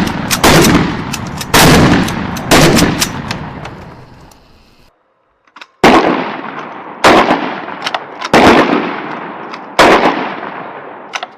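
Shotgun blasts from M26 MASS 12-gauge shotguns firing at targets: about six loud shots a second or so apart, each trailing off in a long echo, with a short break about halfway.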